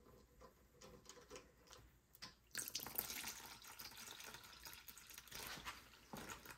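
Faint running liquid that starts suddenly about two and a half seconds in and runs steadily, after a few light clicks.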